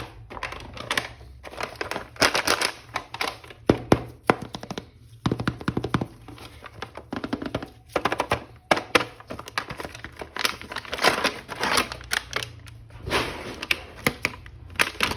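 Hands handling a plastic action figure and its packaging: irregular clicks, taps and crinkly rustling.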